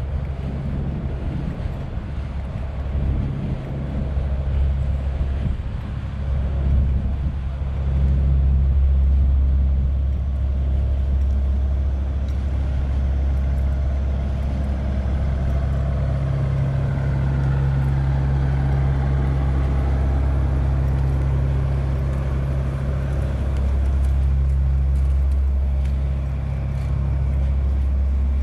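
Steady low rumble of road traffic, with vehicle engines and tyres running continuously and swelling slightly around the middle.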